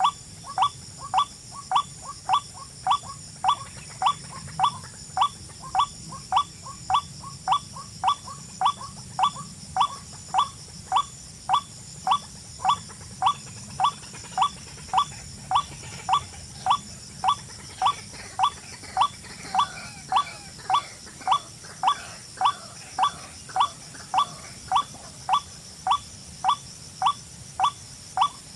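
A short bird-like chirp repeated very evenly, about twice a second, over a steady high-pitched hiss.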